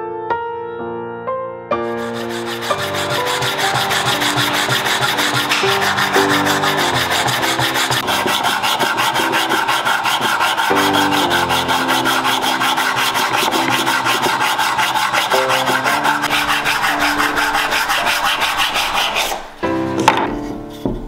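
Sandpaper on a small hand sanding block rubbed quickly back and forth over a laminated ash and walnut bow handle, in rapid even strokes that stop near the end. Piano music plays underneath.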